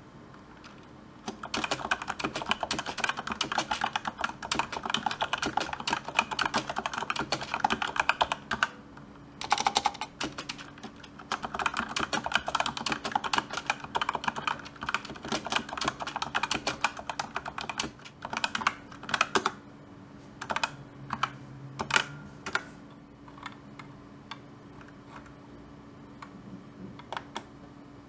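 Typing on a Razer BlackWidow V3 keyboard with silent yellow mechanical switches: fast runs of soft keystroke clicks, broken by a short pause about eight seconds in. The keystrokes thin out to scattered single key presses over the last third.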